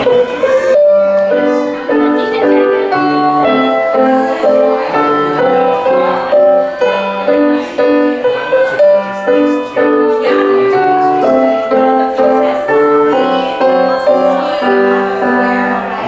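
Piano music: a melody over steady repeated chords, starting about a second in.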